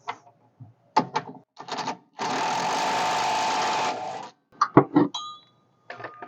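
A handheld power tool runs steadily for about two seconds in the middle, driving a fastener on a rear shock mount. Short metallic clicks and knocks of tools and parts come before and after it.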